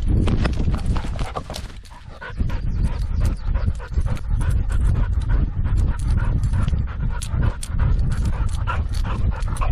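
A dog panting hard close to the microphone, over a steady run of thumps and jolts from a camera strapped to its harness.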